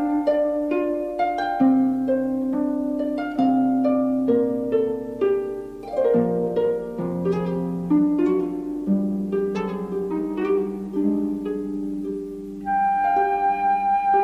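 Orchestral background music: a harp plucking a run of notes over pizzicato and bowed strings.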